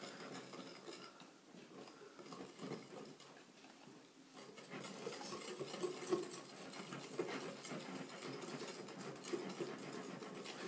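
Wire whisk beating a runny batter in a glass bowl: a fast, steady patter of strokes against the bowl, getting louder about four seconds in.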